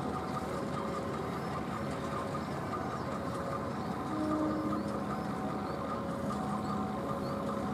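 Railway level crossing alarm sounding a steady alternating two-tone chime, over the low steady rumble of an approaching train.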